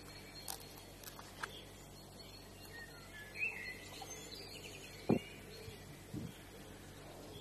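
Quiet outdoor ambience with a short bird chirp about three and a half seconds in and a few light clicks. About five and six seconds in come two soft knocks as a small wild cat noses and bumps against the camera trap.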